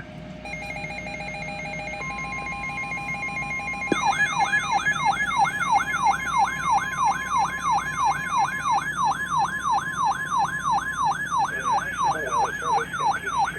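Emergency alert tones from a weather-radio broadcast: a steady beep tone, a higher steady tone about two seconds in, then from about four seconds in a siren-like alarm that sweeps up and down about two and a half times a second.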